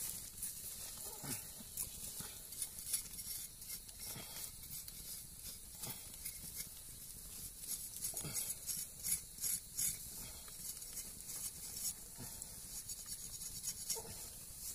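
Wood fire crackling with many scattered sharp pops over a steady hiss, together with the rasp of hands and a knife blade scraping singed fur off a monkey carcass.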